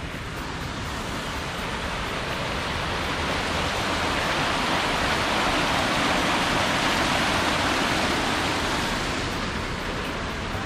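Small waterfall cascading over rocks into a stream: a steady rush of water that grows louder over the first few seconds, is loudest around the middle, and eases off near the end.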